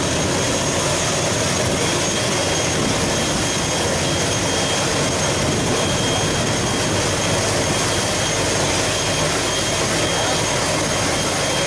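Steady whine and rush of a parked ATR 72-600 turboprop's engine running on the apron, with a thin high tone held throughout. A crowd's chatter sits underneath.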